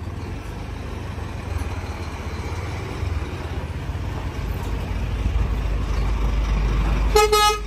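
Scania truck with a tipper semi-trailer driving slowly up and turning past close by, its diesel engine rumbling and growing louder as it nears. A short horn toot sounds near the end.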